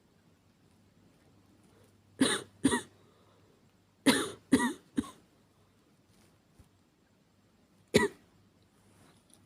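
A young woman coughing in short fits: two coughs about two seconds in, three more a couple of seconds later, and a single cough near the end. The coughs are acted, a performance of a feverish cold.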